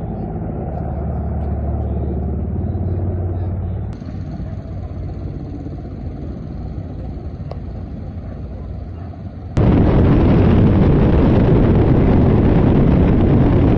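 Helicopter noise across several cuts: at first a steady low drone of engines and rotor, then a quieter rumble, and about ten seconds in a sudden jump to a loud, even rushing noise.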